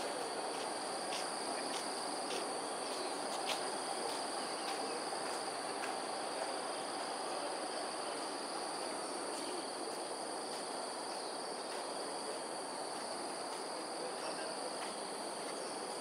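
Steady insect drone holding two high, unchanging tones over a constant outdoor background hiss, with a few faint ticks in the first half.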